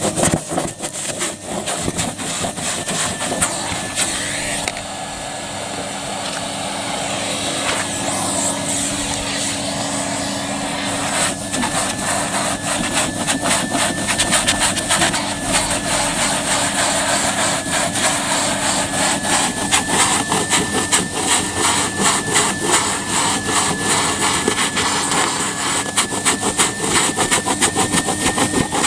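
Numatic Hetty vacuum cleaner running with a steady motor whine, its floor tool pushed back and forth over a car's carpet rug with a rapid scratchy rasping of the nozzle on the pile. The rasping eases off for a few seconds near the start, then picks up again.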